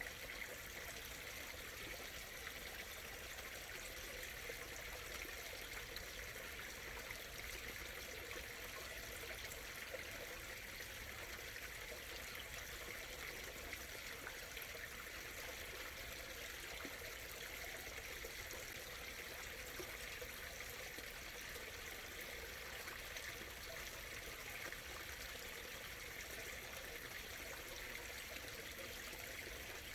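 Small stream flowing and trickling steadily, an even water murmur with no change.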